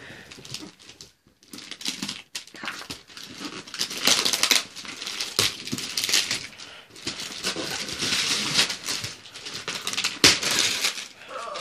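Gift wrapping paper being ripped and crinkled off a cardboard box in repeated tears and rustles, heavier from about four seconds in.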